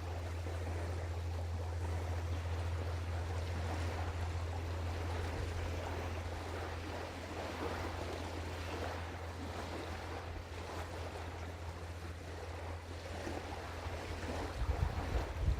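Open-air riverbank ambience: a steady low drone under a haze of wind and water noise. Near the end, wind gusts start buffeting the microphone.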